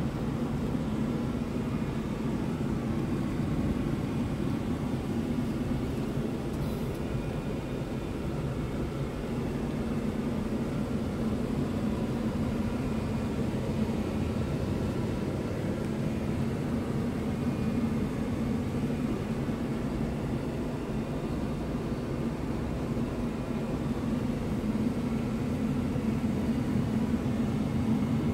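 Scania R truck's diesel engine idling steadily, a low even hum heard from inside the cab.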